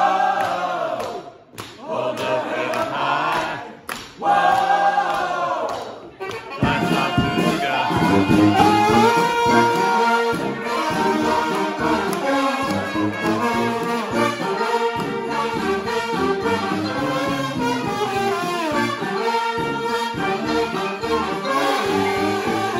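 A group of voices chants three drawn-out calls. About six seconds in, a brass band comes in at full volume, with trumpets and trombones playing over a steady beat.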